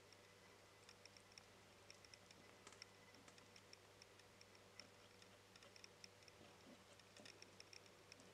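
A sugar glider licking and lapping milk from the tip of a feeding syringe: faint, irregular small clicks, a few a second.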